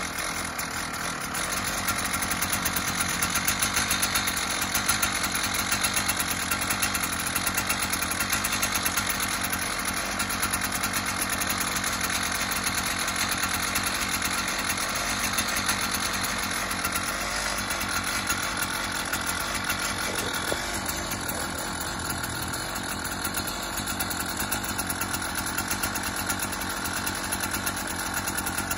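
Gas-powered ice auger's small engine running steadily, just started for the first time since last season, growing louder about two seconds in.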